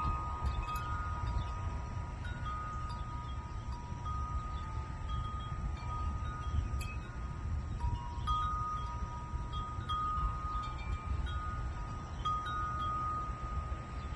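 Wind chimes ringing in the breeze: metal tubes struck every second or two, each note ringing on and overlapping the next, over a steady low rumble.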